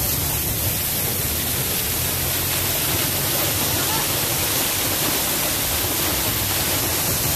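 Waterfall rushing, a steady, even roar of falling water with no breaks.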